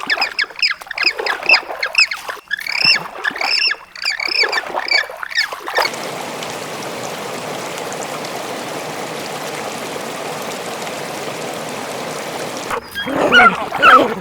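Birds calling in quick short squawks, several a second, for about six seconds, followed by a steady even rushing noise for about seven seconds; near the end a new burst of animal calls begins.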